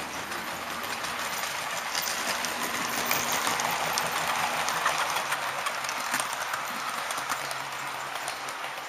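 HO-scale model train passing close by on the adjacent track: the small metal wheels rumble along the rails with many small clicks. The sound grows louder to a peak about three to five seconds in, then fades as the train goes by.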